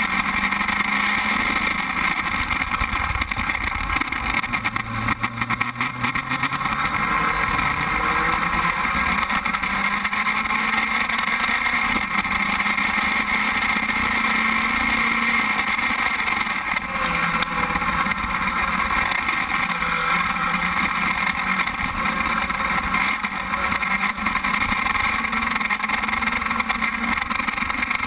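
Formula Speed 2.0 open-wheel race car's engine running, heard from the car's onboard camera with a heavy rush of wind and noise over the microphone; the engine note drifts gently up and down.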